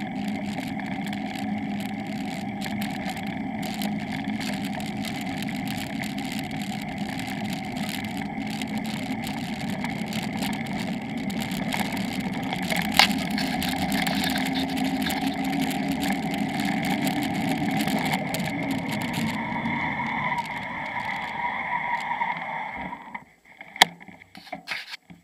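Steady rushing of wind and road noise on a bicycle-mounted camera while rolling down a paved road. It drops away abruptly near the end as the bike comes to a stop, followed by a single sharp click.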